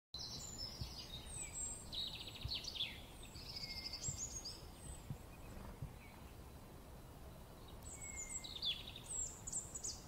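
Songbirds chirping and trilling in quick, high notes over a faint steady background hiss. A busy bout runs through the first half and another comes near the end.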